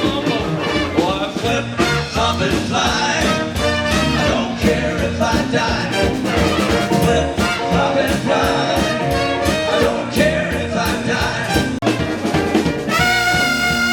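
Live horn band playing an upbeat tune, brass over a steady drum beat. Near the end the horns hold one long note.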